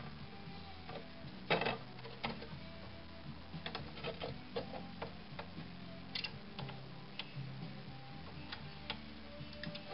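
Irregular small metallic clicks and taps from pliers gripping and jiggling an electrolytic capacitor on a circuit board while its solder joints are heated, with a louder clatter about one and a half seconds in. Faint music plays underneath.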